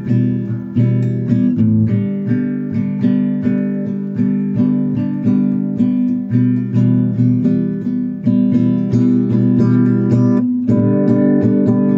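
Acoustic guitar strummed in a steady rhythm, about two strums a second, changing chord every few seconds.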